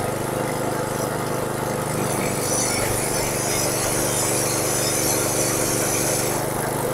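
Honda GX160 single-cylinder four-stroke engine running steadily, driving a Sanchin SC30 power sprayer pump. About two seconds in, a jet of water starts hissing out of the pump head under pressure, and it stops shortly before the end.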